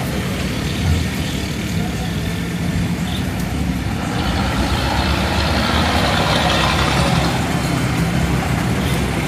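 Steady motor noise: a continuous low hum with a noisy spread above it, unchanging throughout.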